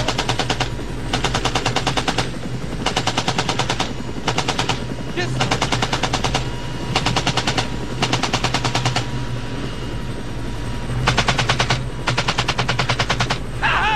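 .50 caliber machine gun firing about nine short bursts of rapid, evenly spaced shots, each burst half a second to a second and a half long, with a pause of about two seconds before the last two bursts.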